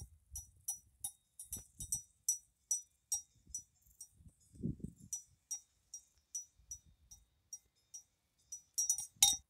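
Cowbell on a grazing cow clanking in a loose, steady rhythm of about two or three strikes a second, each strike ringing briefly, with a louder burst of strikes near the end.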